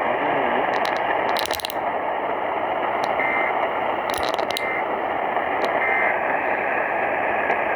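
Radio receiver static: a steady hiss with clusters of crackles about a second and a half in and again about four seconds in, and three short high beeps in the middle.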